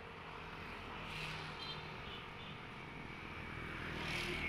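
Street traffic ambience: a steady noise of passing vehicles that swells about a second in and again near the end.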